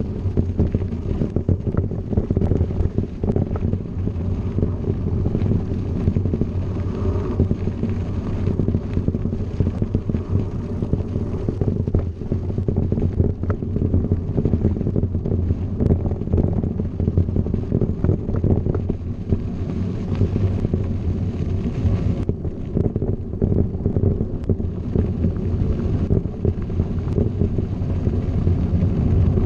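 Wind buffeting the microphone of a moving mountain bike, over a steady low rumble of knobby tyres rolling on a gravel road.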